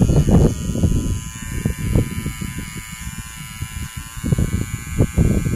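Nova cordless rechargeable hair trimmer switched on and running, a steady high buzz from its motor and blades. Irregular low thumps and rumble sound beneath it.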